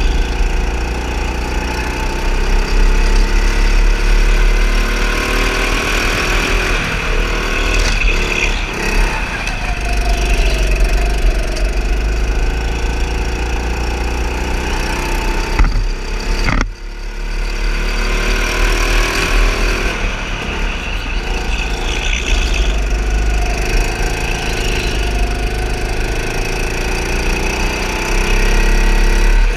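A go-kart's small engine running under throttle on track, its pitch rising and falling with speed through the corners, over a steady low rumble. The sound drops out briefly about 17 seconds in.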